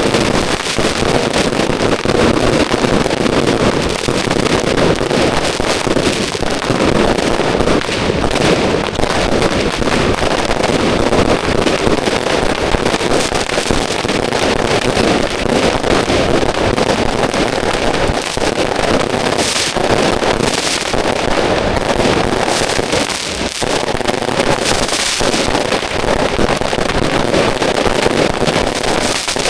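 Firecracker strings going off at close range in a dense, unbroken crackle of rapid bangs.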